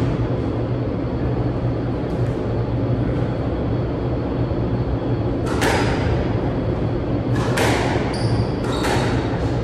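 Squash ball rally: sharp smacks of the racket and ball off the court walls, a few in the second half, with a brief high squeak of a shoe on the wooden floor near the end, over a steady low hum.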